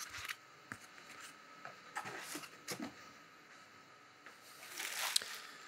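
Faint rustling of plastic wrap and styrofoam packing being handled, with a few light knocks and a slightly louder rustle about five seconds in.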